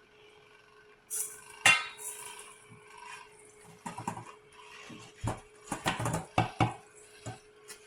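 Metal kitchenware, likely the stainless steel grain mill's parts and bowl, being handled: a sharp clank a little under two seconds in, then scattered knocks and clinks. The mill's motor is not running.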